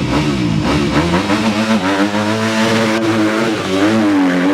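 Off-road vehicle's engine revving, its pitch rising and falling again and again in the first seconds, then holding higher and steadier under load.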